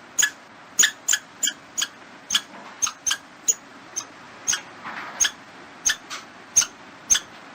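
Squirrel barking: a series of short, clipped calls repeated at an uneven pace of about two a second, with a brief pause near the middle.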